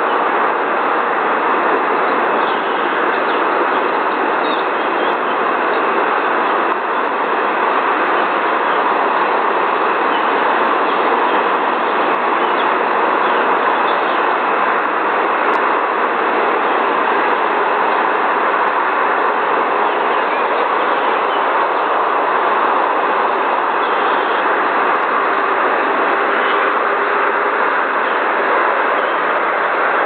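A steady, loud rushing noise that does not change or break at any point.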